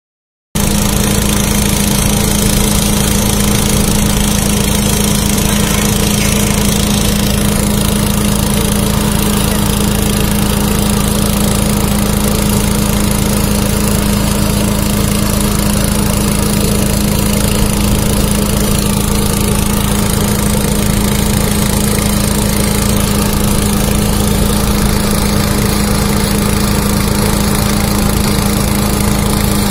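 Small engine running steadily at a constant speed, a continuous drone with a strong low hum, from the equipment working a rail weld.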